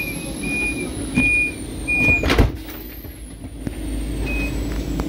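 Door-closing warning on a DB Metropolitan passenger coach: a run of high electronic beeps, about one and a half a second, then a loud clunk a little over two seconds in as the sliding door starts to shut. A low hum follows while the door slides closed.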